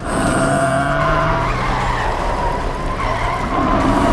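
Cartoon sound effect of a bulldozer engine running hard while it strains to tow a heavy dump truck, with a steady noise of wheels spinning and skidding; the pull is failing. It starts suddenly and holds steady.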